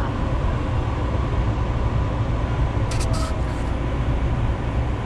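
Light rail train running, a steady low rumble heard from inside the car, with a few brief clicks about three seconds in.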